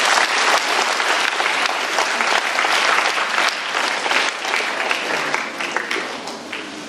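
Audience clapping: dense applause of many hands that gradually dies down toward the end.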